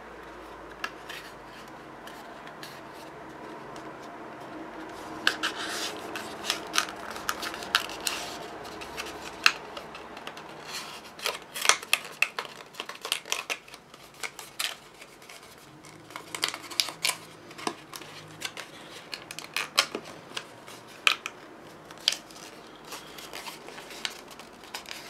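Stiff cardstock being handled and folded into a pillow box: irregular crackles and sharp clicks of the card bending, creasing and sliding, starting about five seconds in.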